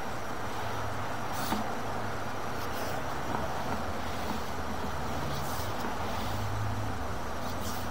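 Steady mechanical background noise with a low hum and a few faint clicks, heard while a sewer inspection camera's push cable is drawn back through the drain line.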